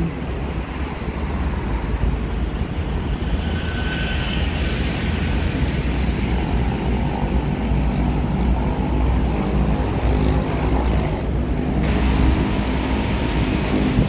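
Steady low rumble of wind buffeting the microphone, mixed with road traffic noise.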